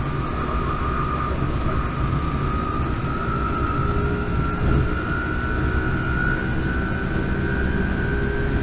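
Inside a MAN Lion's City Hybrid city bus under way: the electric drive's whine rising slowly in pitch as the bus gathers speed, over a steady low rumble from the drivetrain and road.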